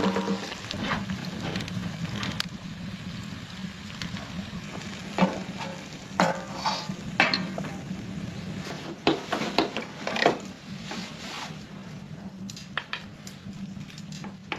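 Food sizzling in a frying pan while it is stirred, with scattered clicks and scrapes of the utensil against the pan, most of them in the middle stretch.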